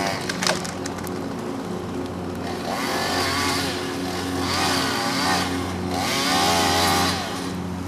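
Chainsaw running and cutting through a tree, revving up in three surges over a steady engine hum, with a few sharp clicks about half a second in.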